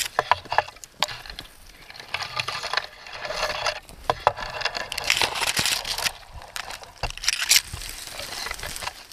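Leaves and ferns rustling and dry twigs crackling and snapping as a person pushes and scrambles down a steep bush track through scrub, with footfalls on dry ground.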